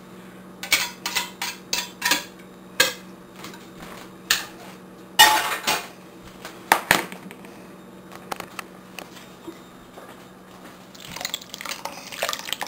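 A utensil knocking and scraping against a tin can and the rim of a ceramic slow cooker as tomato sauce is emptied into it: a run of sharp clinks and knocks, loudest around the middle. Near the end come quicker scraping and clattering as the chili is stirred in the crock.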